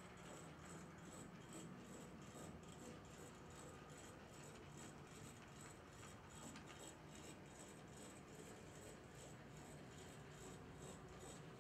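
HO-scale brass model of a Pennsylvania Railroad 2-10-2 N-1s steam locomotive with a can motor, running along the track: a faint, even mechanical rattle with rapid, regular ticking from its wheels and drive.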